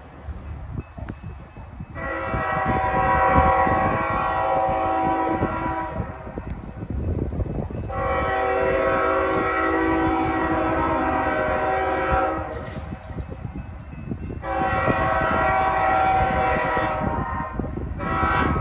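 Air horn of an approaching CSX freight locomotive, a multi-note chord, sounded in three long blasts of several seconds each with a fourth starting near the end. A low rumble runs underneath.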